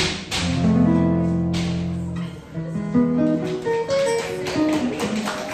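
Solo acoustic guitar playing jazz chords. A strummed chord rings for about two seconds, then comes a run of single plucked notes and chords.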